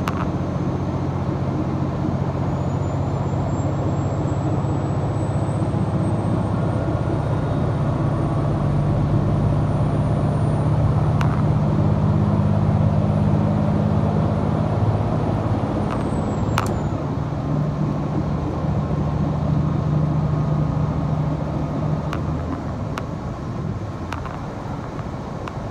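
Diesel railcar of a limited express train running under power, heard from inside the passenger car: a steady engine drone with wheel and track noise that swells toward the middle and eases near the end. A faint high whine rises slowly and drops away about two-thirds through, and a few sharp clicks sound in the second half.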